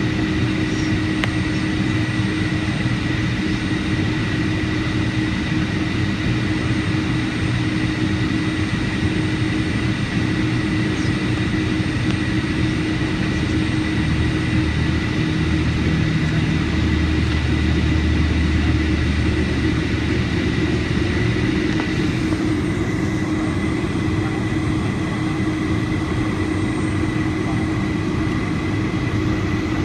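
Boeing 757-200 jet engines and airflow heard steadily inside the passenger cabin, with a constant whine under the rush. A deeper low rumble swells for several seconds in the middle, then eases.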